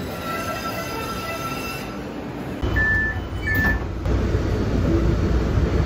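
MBTA Green Line trolley on the platform, its wheels giving a thin, high squeal that fades. About two and a half seconds in, the sound changes to the steady low rumble inside the car, with two short identical beeps of the door chime.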